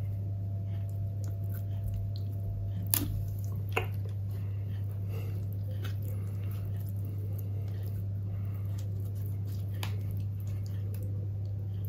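Hands handling raw duck skin and pushing toothpicks through it to pin the stuffed cavity shut: faint soft handling sounds with two sharper clicks about three and four seconds in, over a steady low hum.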